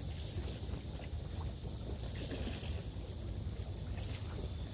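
Wind rumbling on the microphone outdoors, with a steady high-pitched hiss running underneath; no distinct events.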